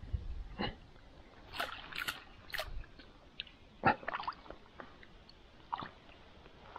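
Landing net worked through the water toward weeds: a series of short sloshes and splashes, the sharpest about four seconds in.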